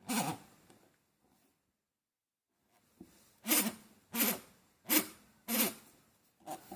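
Old Yamaha V-Ixion mechanical speedometer groaning and squealing as its drive turns: one squeal at the start, then a regular run of squeals about one every 0.7 s from about three seconds in. The owner traces the noise to a little rust in the speedometer's inner thread and drive hole.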